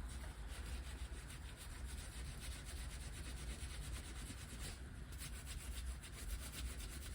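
A brush scrubbing the casing of a Minarelli AM6 50cc engine in quick, steady back-and-forth strokes.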